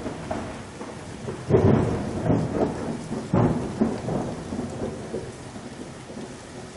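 Thunder rolling over a steady hiss of rain, with two loud rumbles about one and a half seconds and three and a half seconds in, each dying away.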